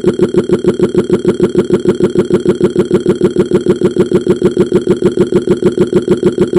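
Cartoon burp sound effect looped into a long, loud, stuttering burp that pulses evenly about six times a second.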